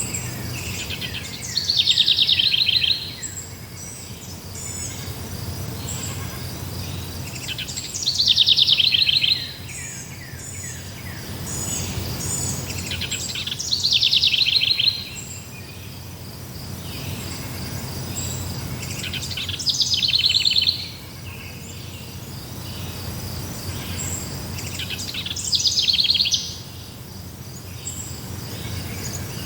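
A songbird repeating the same short, rapid trilled phrase about every six seconds, each phrase falling in pitch, five times in all. Underneath, a steady high insect trill, like crickets, runs on.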